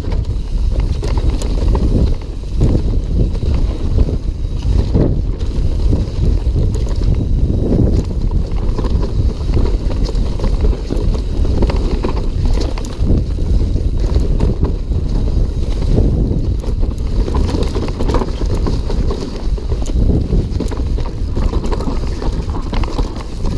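Wind rushing over the microphone of a rider-mounted action camera as a mountain bike descends fast on dirt singletrack, with the tyres running over dirt and the bike rattling and knocking over bumps throughout.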